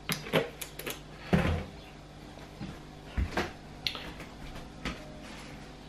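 A run of light knocks and clicks of kitchen containers being handled and set down on a bench, about nine in all, the loudest about a second and a half in.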